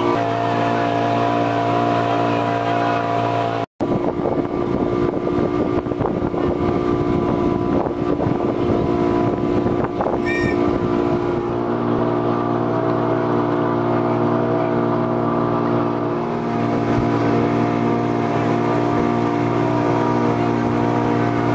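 Motorboat engine running steadily at cruising speed, a constant drone with water rushing along the hull. The sound breaks off for an instant about four seconds in.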